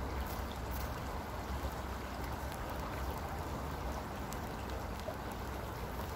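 Steady rush of flowing river water, with a low rumble underneath and a few faint clicks.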